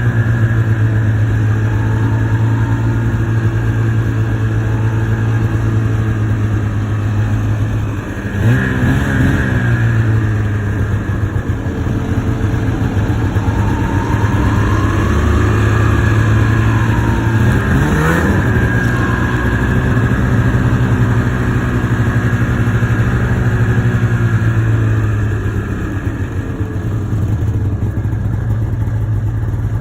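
Two-stroke snowmobile engine running under way. Its note holds fairly steady and briefly revs up and rises in pitch twice, about eight seconds in and again about eighteen seconds in.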